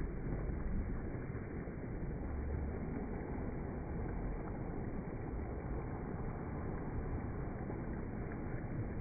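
Small waves breaking and washing up a sandy beach: a steady rush of surf with uneven low rumbles.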